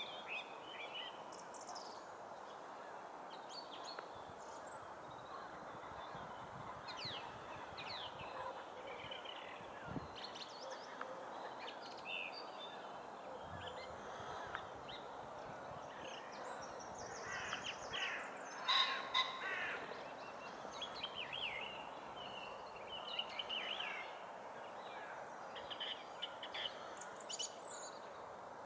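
Winter dawn chorus before sunrise: several birds calling and singing in short, overlapping phrases over a steady low rushing background, with a louder burst of harsh calls about 18 seconds in.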